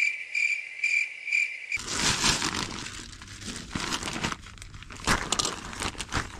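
A cricket-chirping sound effect, a few pulsing chirps for under two seconds, cut off abruptly. Then plastic wrapping crinkles and tears steadily as a compressed dog bed is unpacked.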